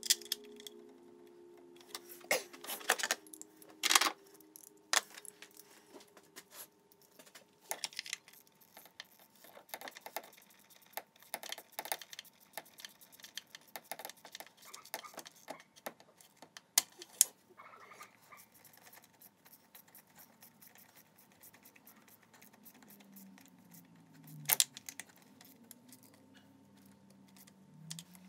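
Scattered clicks, taps and light metallic knocks of hoses, clips and connectors being handled and refitted in a Mazda RX-8's engine bay. A few louder knocks come about two to four seconds in and again near seventeen and twenty-five seconds.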